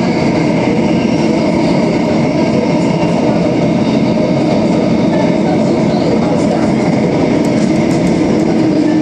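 Downtown Line metro train running at speed through a tunnel, heard from on board: a steady rumble of wheels on the rails with a faint steady hum over it.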